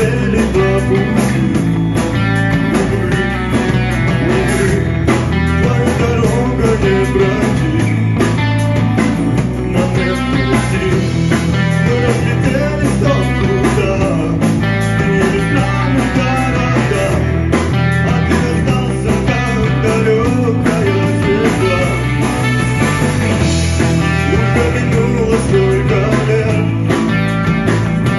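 A rock band playing live: electric guitar, electric bass and drum kit, loud and steady.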